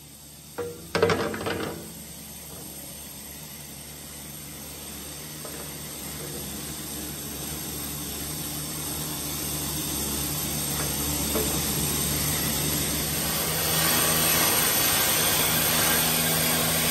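A few sharp metal knocks about a second in, from a hammer striking a long spanner to break loose bolts on a steel light guard. After them a steady machine noise with a low hum grows slowly louder and is loudest near the end.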